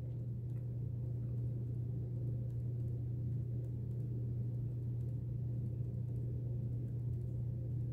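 A steady low hum, with faint soft ticks of a pen tip tapping dots onto paper.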